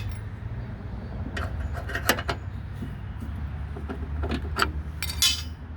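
Metal clicks and clinks of a wrench tightening a lawnmower wheel's 14 mm nut on its spindle, a handful of irregular strikes with a bright clink near the end, over a steady low hum.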